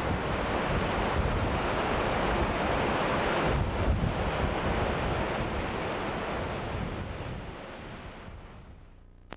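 Ocean surf: a steady wash of waves that fades out over the last two seconds or so, with a brief click near the end.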